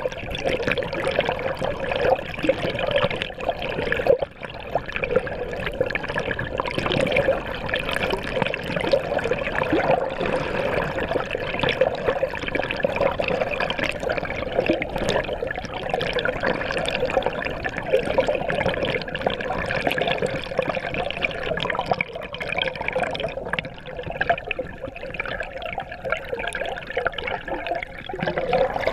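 Water rushing and splashing along a kayak's hull, heard close to the water line as a dense, continuous wash with small crackling splashes throughout.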